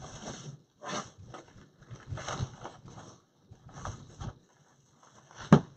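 Rustling handling noises in short irregular bursts, with one sharp click near the end.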